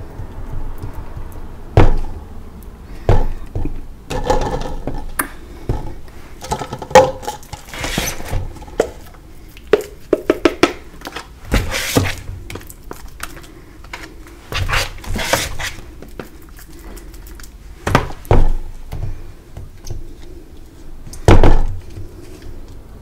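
Gym chalk being scooped and packed by hand into glass cups: irregular crunching and scraping, broken by a dozen or so sharp knocks and thunks of glass and a scraper tool against the cups and tray.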